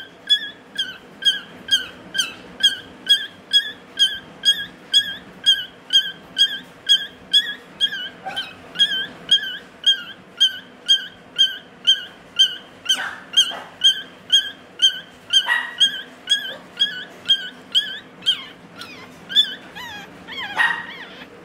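Newborn Shih Tzu puppy crying: a steady run of short, high-pitched squeaky cries, about two a second. Near the end the cries grow irregular.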